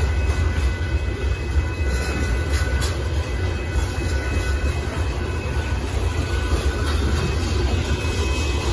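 Gravel-laden hopper cars of a Union Pacific freight train rolling past over a grade crossing: a steady heavy rumble of wheels on the rails, with a faint steady high whine over it and a few light clicks from the wheels over the rail joints.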